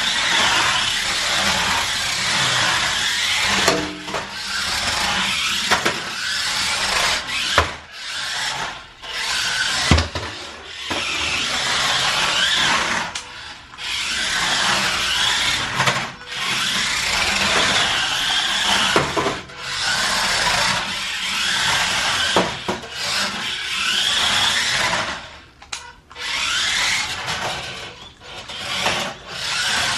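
Electric motor of a DEERC RC drift car whirring in spurts of a few seconds as it drives, stops and starts again, its wheels scrubbing across the floor, with a few sharp knocks as the car bounces off things.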